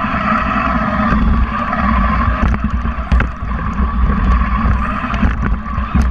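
Small competition robot's electric drive motors running as it drives across carpet, picked up by a camera mounted on the robot: a steady low rumble with a wavering whine, broken by a few sharp knocks.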